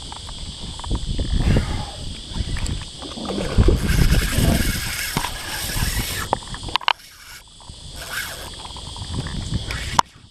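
Water sloshing and slapping around a fishing kayak, with wind gusting across the microphone in loud, uneven surges and a few small knocks.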